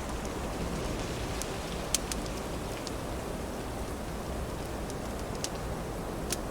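Wood fire burning with a handful of sharp, scattered crackles, the loudest about two seconds in, over a steady rushing of wind.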